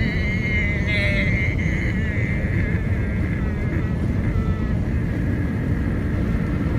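A woman's closed-mouth humming breath, the bee-like buzz of bhramari breathing, wavering in pitch and fading out over several seconds. Steady car road noise inside the cabin runs underneath.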